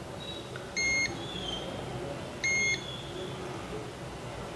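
Digital multimeter's continuity beeper giving two short identical beeps about a second and a half apart as the probe touches a phone logic-board coil line that is shorted to ground.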